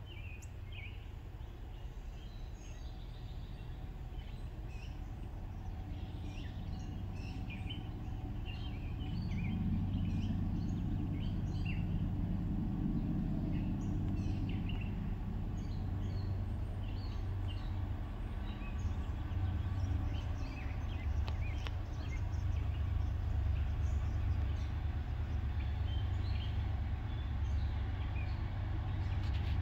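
Songbirds chirping over the low rumble of an approaching freight train's diesel locomotives, which grows louder about ten seconds in.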